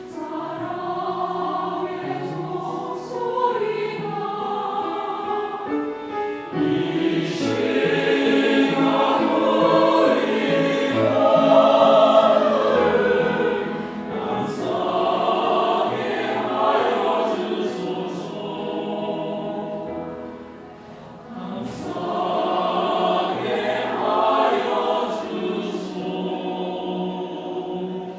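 Church choir singing a hymn in Korean, in sustained phrases that swell and briefly fall back before the next phrase.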